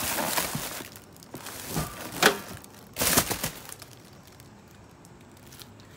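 Plastic film and packing wrap crinkling in a few short bursts as exhaust parts are handled in their box.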